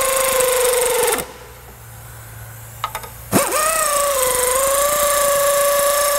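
Air ratchet running down clutch pressure plate bolts: a steady whine with air hiss that stops about a second in and starts again a little past three seconds, dipping briefly in pitch as it takes up the load. The bolts are being snugged down evenly in turn, not yet torqued.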